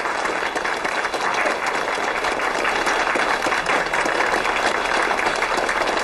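A roomful of people applauding, many hands clapping steadily.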